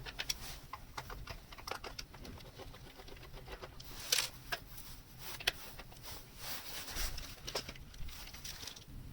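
Irregular small clicks and taps of a screwdriver and hands working at the screws that hold a Commodore 64 keyboard to its metal mounting plates, with one louder clack about four seconds in.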